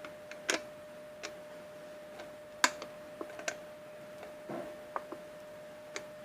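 Irregular light clicks and taps from handling the plastic lid, container and screw fitting of a homemade bottle water feeder, the sharpest about two and a half seconds in, over a faint steady hum.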